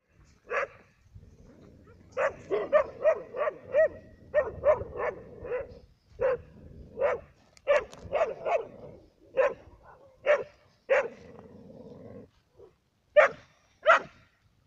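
Dog barking in short, repeated barks: a quick run of about a dozen barks between two and six seconds in, then barks coming singly or in small groups about a second apart.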